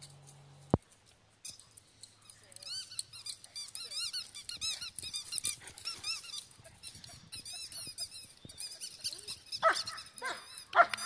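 Rubber squeaky toy squeaking over and over in quick succession as a Great Dane chomps on it, each squeak a short high rise and fall. A sharp click about a second in, and two louder sounds near the end.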